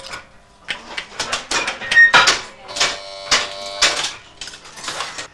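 Metal parts of a small hand-worked Bakelite moulding press clattering and clinking as it is opened and worked: an irregular run of sharp metallic knocks, two or three a second, some ringing briefly.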